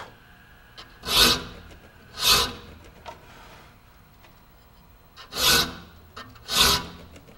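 A hand saw file rasping across the steel teeth of a 7-point handsaw: four strokes of about half a second each, in two pairs a second apart, with a pause of about three seconds between the pairs. This is heavy sharpening, filing the teeth to set the spacing of the flat spots and the depth of the gullets.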